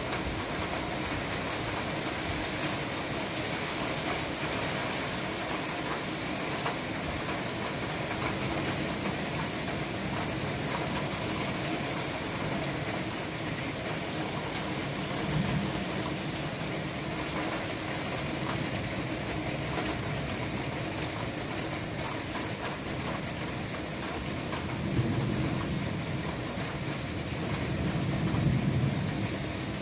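Heavy downpour: rain pouring steadily and evenly. A low rumble swells briefly about halfway through and again, longer, near the end.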